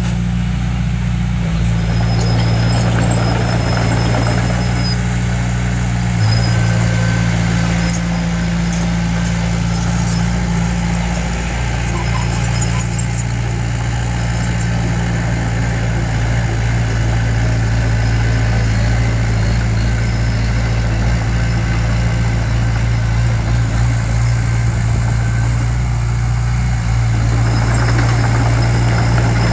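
Diesel engine of heavy earthmoving equipment running steadily with a deep, even hum.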